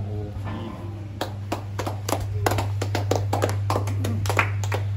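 A small group of people clapping their hands, irregular claps starting about a second in and going on for several seconds, over a steady low hum.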